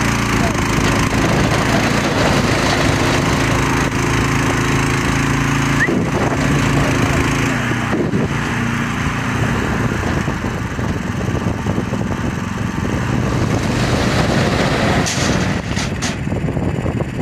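MTZ-132 mini tractor's engine running steadily while driving its NSh-10 hydraulic pump to raise the dump trailer's bed, with a load of stones clattering and tumbling out as the bed tips. A few sharp clicks near the end.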